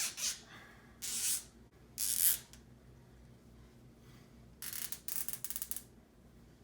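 Plastic cable zip tie being pulled through its locking head: three short rasps, then about a second later a quick run of ratchet clicks lasting just over a second.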